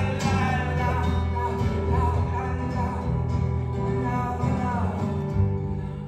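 A male voice singing long, bending notes over an acoustic guitar, played live; the voice trails off near the end.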